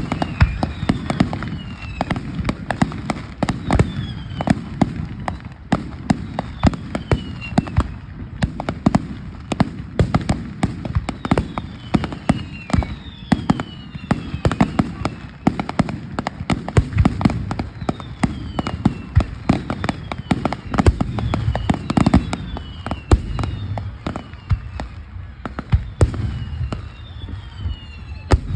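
Fireworks going off without a break: many sharp bangs and crackles over a low rumble, with short whistles falling in pitch every few seconds.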